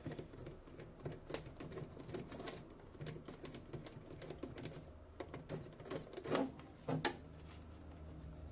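Light metallic clicks and taps of hand tools and small radio parts being handled while a CB radio's metal chassis and connector are taken apart, with two slightly louder clicks near the end.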